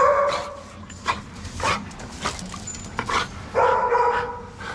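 Adult male Dalmatian giving loud held whining cries, one right at the start and a longer one about three and a half seconds in, with short yips between.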